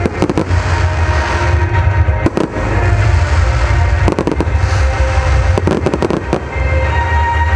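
Fireworks shells bursting in clusters of sharp bangs: near the start, about two seconds in, about four seconds in, and again between five and six seconds. Under them runs music with a heavy, steady bass.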